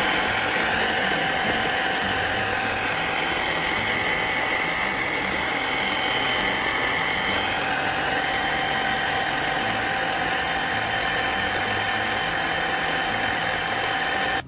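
Electric food processor motor running steadily, its blade grinding shallots, lemongrass, galangal and other aromatics with a little water into a coarse spice paste, with a constant whine over the churning.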